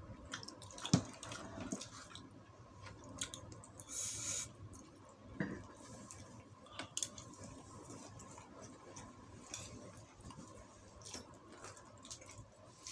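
Close-up eating sounds: a spoon and fork clinking and scraping against food on a paper-wrapped plate, with soft wet chewing. There is a sharp clink about a second in and a brief rustle around four seconds in.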